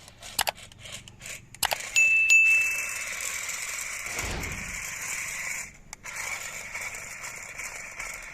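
A few clicks, then a short high beep about two seconds in, followed by the small electric motor of a toy RC monster truck running with a steady high whine that dips briefly near the end.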